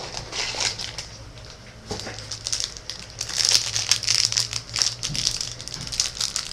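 Plastic crinkling and rustling as trading-card packs and cards are handled, in irregular bursts that grow busier about halfway through, over a low steady hum.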